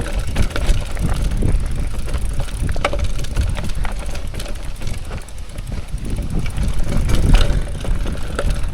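Mountain bike descending a wet, slippery trail: a continuous rumble of tyres and rattling bike with several sharp knocks as it hits roots and rocks.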